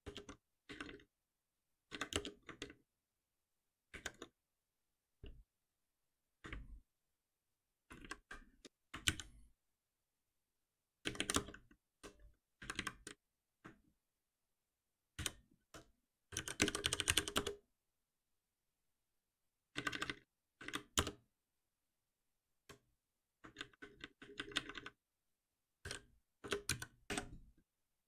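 Computer keyboard being typed on in short bursts of keystrokes and shortcuts, separated by pauses of silence, with a longer fast run of keystrokes about halfway through.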